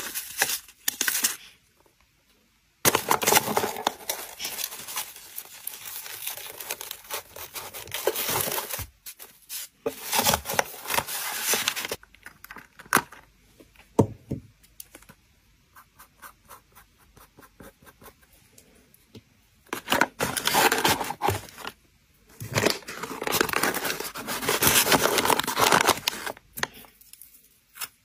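Paper and cardboard rustling and crinkling as paper-wrapped parcels and a kraft box are handled and set into a paper-lined cardboard shipping box, with many light ticks and taps. It comes in several bursts of a few seconds, with quieter pauses between.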